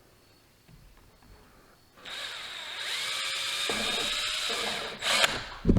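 Power drill with a small 1/16-inch bit running steadily for about three seconds, drilling a pilot hole for a motorcycle tachometer mount. This is followed by a couple of sharp knocks near the end.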